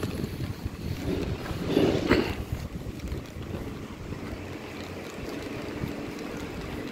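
Wind buffeting the phone's microphone, an uneven low rumble, with a brief louder swell about two seconds in.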